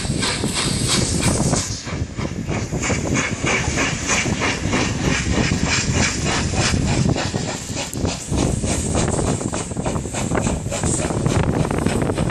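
Peppercorn A1 class three-cylinder Pacific steam locomotive No. 60163 Tornado passing close, its exhaust giving a rapid, even chuffing over a steady hiss of steam.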